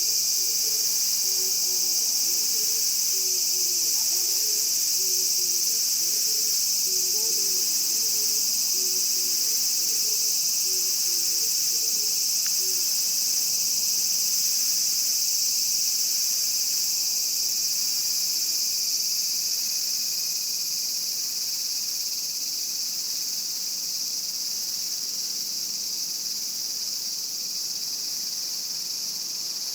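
Chorus of Japanese cicadas buzzing in a steady, dense, high-pitched drone that eases slightly about two-thirds of the way through.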